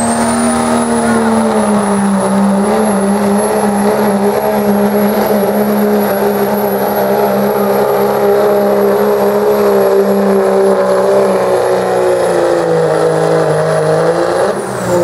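Dodge Ram Cummins turbo-diesel pickup at full throttle under heavy load pulling a weight sled, with a high steady turbo whistle over the engine. The engine note sinks slowly as the sled bogs it down, and near the end the engine and whistle drop away.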